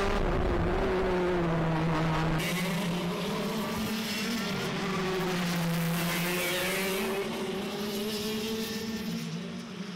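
KZ2 shifter kart engines (125 cc two-stroke) running at racing speed, their pitch rising and falling through the corners. The sound is first heard from the onboard camera on the kart, then about two seconds in from trackside as karts go by.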